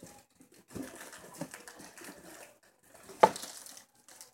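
Clear plastic packaging being handled and crinkled, with one sharp knock a little over three seconds in.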